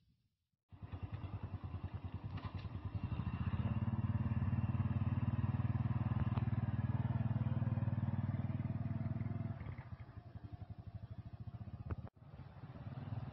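Motorcycle engine running with a fast, even putter. It grows louder a few seconds in, eases off after about nine seconds, and cuts out abruptly near the end before starting again.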